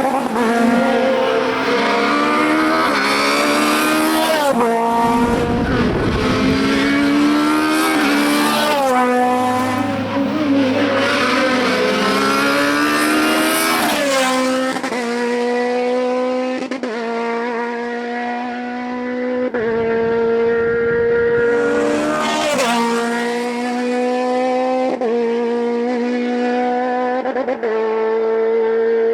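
Hillclimb race car engine at full throttle, its pitch climbing through each gear and dropping back at repeated gear changes.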